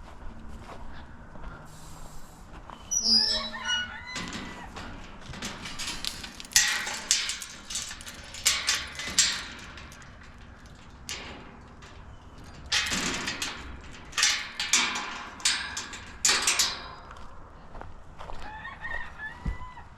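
Backyard chickens clucking and calling, with a longer wavering call about three seconds in. Several louder, noisy sounds come in between the calls.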